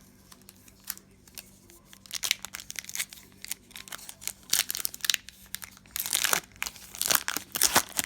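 Plastic trading-card pack wrapper crinkling as it is handled and torn open. The start has only a few light clicks; crinkling begins about two seconds in and comes in bursts that grow louder near the end.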